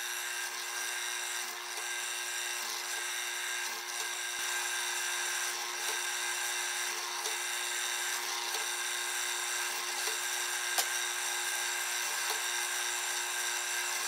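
Benchtop drill press running with a steady motor tone while its small bit drills pilot holes for screws through 2x6 boards.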